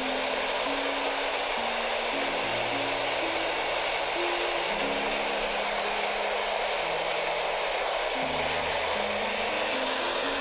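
Hair dryer blowing steadily, an even rushing noise, with background music of low stepping notes underneath.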